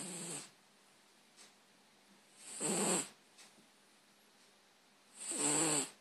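Domestic cat snoring in deep sleep: short rasping snores, one with each breath, about every two and a half seconds, with quiet between them.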